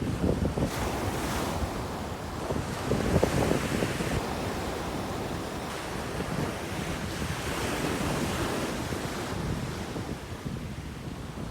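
Wind buffeting the microphone over the wash of sea surf, in gusts that rise and fall.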